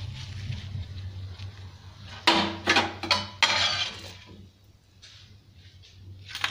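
Utensils clacking and scraping on an iron tawa as a cooked rava dosa is folded and lifted off: a few sharp knocks about two seconds in, then a rough scrape, and a single click near the end. A low steady hum underneath fades out about four and a half seconds in.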